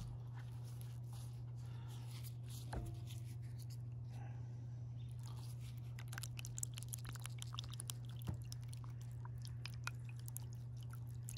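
A wet cloth being squeezed and worked in water in a plastic gold pan: soft squishing and dripping with many small crackles, thicker in the second half, over a steady low hum.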